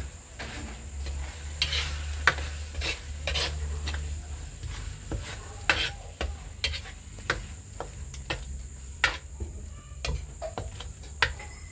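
A metal spatula scraping and tapping against a black wok, stirring corned beef and egg in irregular strokes, with light frying sizzle underneath.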